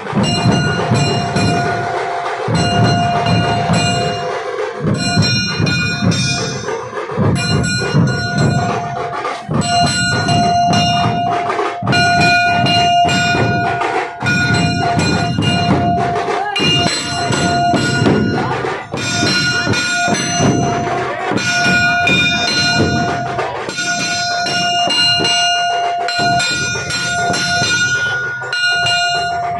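A procession drum band playing barrel drums in a continuous loud beat, with short breaks. A high steady pitched tone is held over the drumming in repeated stretches of a second or two.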